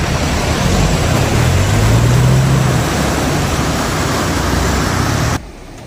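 Rushing river water from a fast rocky stream, with the low engine note of a modified Mahindra Thar 4x4 wading into it. The engine revs up about two seconds in. The sound drops off sharply near the end.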